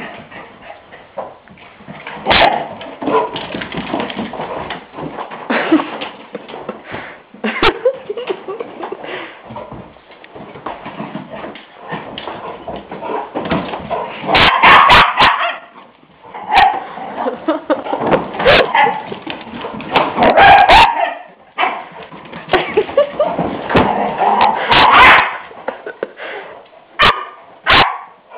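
English springer spaniels playing, the puppy barking in loud bursts again and again, heaviest in the middle and latter part, with a few sharp knocks in between.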